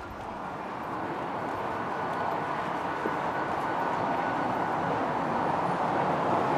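City street traffic: a steady rush of vehicle noise that grows gradually louder, as of traffic drawing near.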